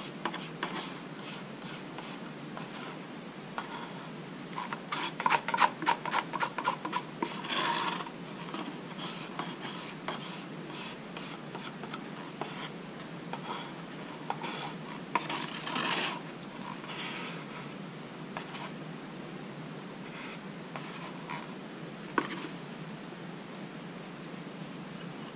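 The last of the white acrylic paint being scraped out of a paper cup into a plastic pouring cup, heard as quick rasping scrapes. They come in a run from about five to eight seconds in, again around sixteen seconds, with a single tick a little after twenty seconds, over a faint steady hiss.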